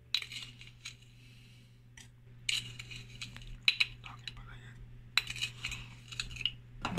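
A metal spoon scooping brown sugar from a glass jar and tipping it into a stainless-steel saucepan: scattered light clinks and scrapes of spoon on glass and steel, in several short clusters.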